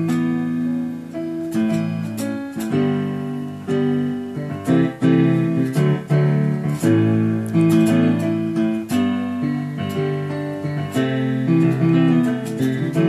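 Electronic keyboard playing an instrumental passage of held chords over sustained bass notes, the chords changing every second or two, with no singing.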